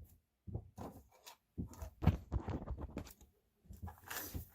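Tools being rummaged through and handled: a scatter of irregular knocks and clatters, with a louder rattling burst near the end, as drill bits and a drill are fetched.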